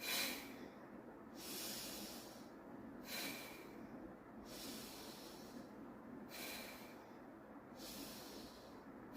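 A woman breathing slowly and deeply in and out through her nose as a yoga breathing exercise, with about six hissing breaths, each lasting one to two seconds.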